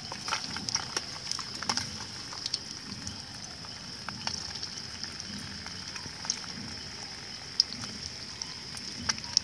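Eggs frying in oil in a metal mess tin over a small burner stove: a steady sizzle with scattered pops and crackles.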